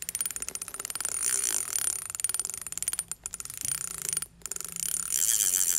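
Digital glitch sound effect: a rapid stutter of clicks and crackling static with a thin, steady high whistle, broken by two brief dropouts.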